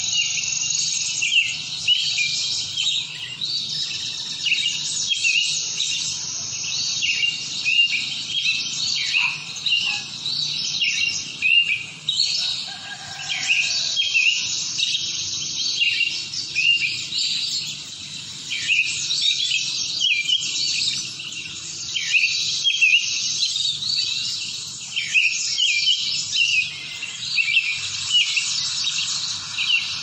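Many birds chirping and singing at once, a dense, unbroken stream of short, high notes overlapping one another.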